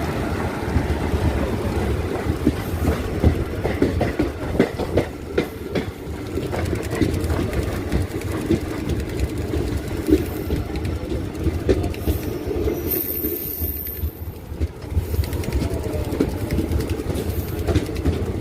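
Passenger train coaches rolling past, wheels clattering rhythmically over rail joints with a steady heavy rumble. A thin high-pitched squeal is heard briefly about two-thirds of the way through.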